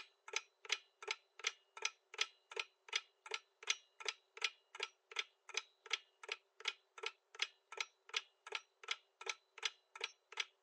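Clock-ticking countdown sound effect for a quiz answer timer: sharp, even ticks at about three a second.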